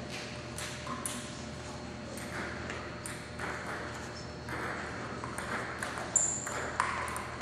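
Table tennis rally: the ball clicking off paddles and the table in a quick, uneven series of sharp ticks, the two loudest hits near the end, over a low hum of the crowd.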